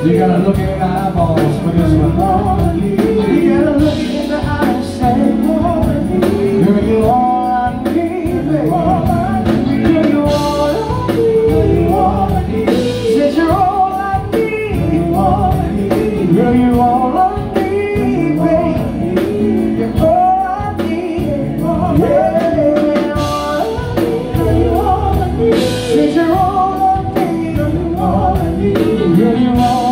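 Live band music: several men singing together, with lead lines and harmony, over electric guitar and drums keeping a steady beat.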